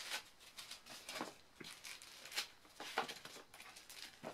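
Foam packing end caps being pulled off a plastic-wrapped tablet and set back in a cardboard box: irregular rustling and scraping, with the plastic bag crinkling and two sharper knocks about two and a half and three seconds in.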